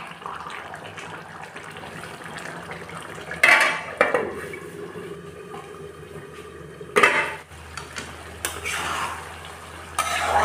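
Metal spatula scraping and clanking in a pan of simmering pork curry, with a few loud metallic clanks as a metal lid is put on and taken off. The thick, reducing curry bubbles softly underneath.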